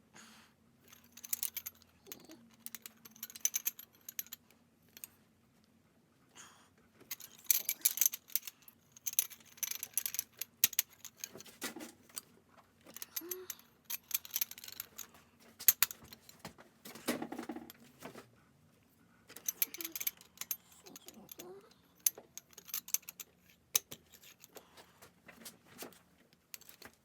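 Ratchet clicking and the clink of metal hand tools in irregular bursts, as the cylinder head bolts are turned through their final 90-degree angle-torque steps.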